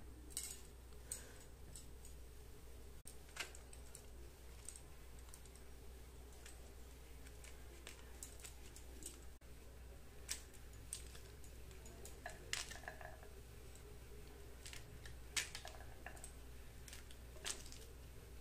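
Scattered light clicks and taps as hands handle pomegranates on a wooden plate and break one open, over a steady low hum.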